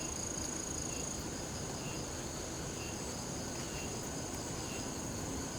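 Cicadas singing, a steady high-pitched drone, with a faint short chirp repeating about once a second beneath it.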